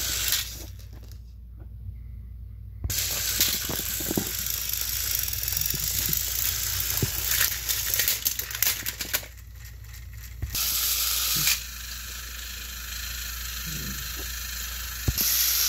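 Motorized Thomas & Friends toy train engines whirring as they push against each other on plastic track. The whirring is high-pitched and comes in stretches broken by two short lulls, with scattered clicks and clatter.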